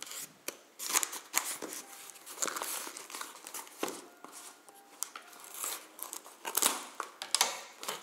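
Scissors snipping through packing tape on a cardboard box, then the tape being pulled and torn off with crinkling, in a string of short, irregular strokes.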